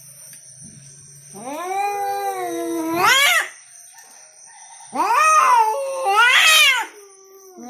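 Two cats caterwauling in a territorial standoff: long, drawn-out yowls that each climb in pitch to a wail at the end. One starts about a second in, and another about five seconds in swells twice.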